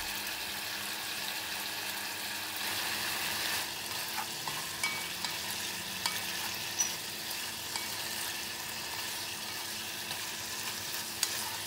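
Boiled meat frying in a pan: a steady sizzle, with a few light knocks from the utensil stirring it.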